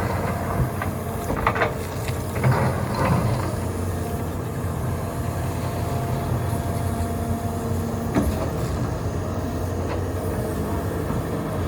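Hitachi 350 excavator's diesel engine running steadily as it digs gravel, with several knocks and scrapes in the first few seconds and a single sharp knock about eight seconds in.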